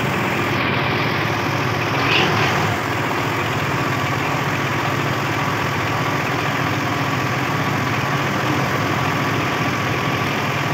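Belarus MTZ-50 tractor's four-cylinder diesel engine idling steadily on its newly fitted diesel injection pump, with a brief louder, higher-pitched sound about two seconds in.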